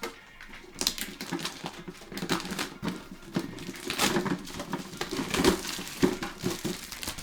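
Plastic wrap crinkling and rustling in irregular bursts, with scraping and a few sharp clicks, as a sealed metal card tin is unwrapped and opened.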